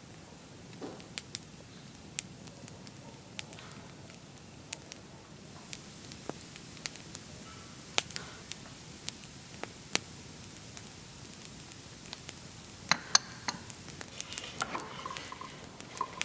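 Scattered light clicks and taps over a faint steady hiss, as small objects are handled; the clicks come closer together near the end.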